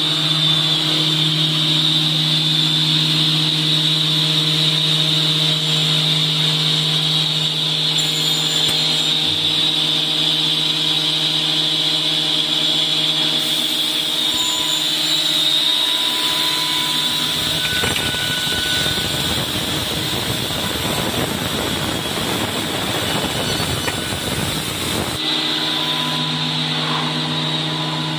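HC-9700 soft-forming edge banding machine running unloaded, a steady motor hum with a high whine. About two-thirds of the way through, a rushing noise joins in for about seven seconds, then stops.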